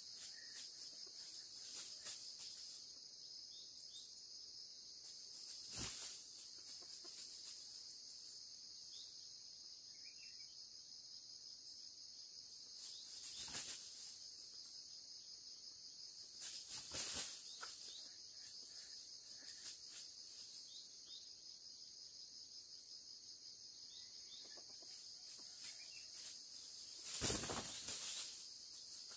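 Insects droning steadily at a high pitch, with four brief, louder noisy bursts spread through, the longest near the end.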